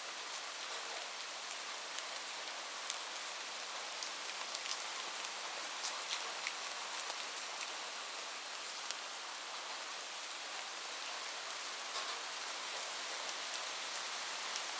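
Steady rain falling on a roof: an even hiss with individual drops ticking sharply here and there.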